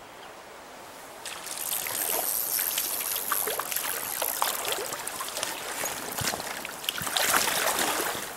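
A small hooked brown trout splashing and thrashing at the surface of a shallow stream, starting about a second in, with a louder flurry of splashing near the end as it is drawn in to hand.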